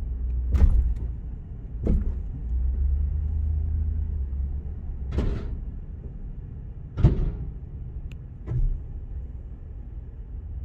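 Low, steady engine rumble of a Ford F-350 Super Duty's 7.3-litre gas V8, heard from inside the cab as the truck rolls slowly forward. Five sharp thumps and knocks are scattered through it, the loudest about two thirds of a second in and about seven seconds in.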